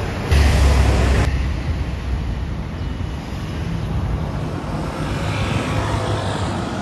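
Street traffic noise: a steady low rumble of vehicles. About a third of a second in, a loud rush of noise cuts in and stops abruptly about a second later.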